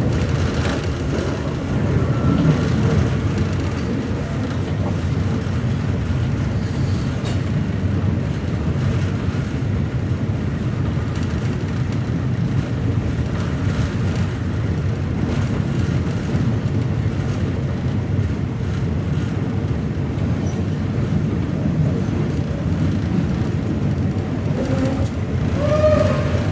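Steady running noise of a moving passenger train heard from on board, a low rumble mixed with rushing wind. A brief higher wavering tone sounds near the end.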